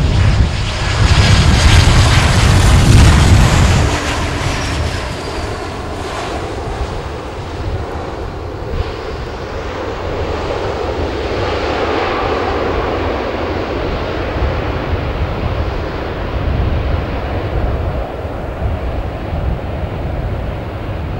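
Boeing 737-800's CFM56 turbofans during touchdown and rollout: a heavy rumble with a falling high whine and wind buffeting the microphone for the first few seconds, dropping off about four seconds in. From about six seconds a broad engine rush swells, loudest about twelve seconds in, then slowly eases, as the engines run up in reverse thrust to slow the jet.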